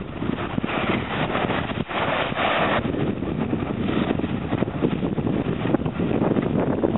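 Wind buffeting the microphone over choppy water, with water sloshing and splashing throughout and a louder rush of water about two seconds in.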